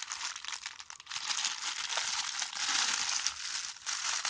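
Packaging crinkling and rustling continuously as wrapped parts are handled and unwrapped.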